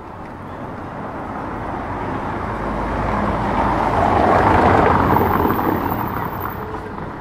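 A motor vehicle driving past, its engine and tyre noise building steadily to a peak about four and a half seconds in, then fading.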